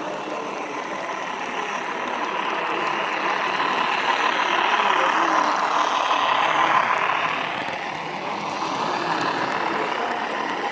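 Model train running along a layout's track, the rumble of its wheels and motor swelling about halfway through and then easing off again as it passes.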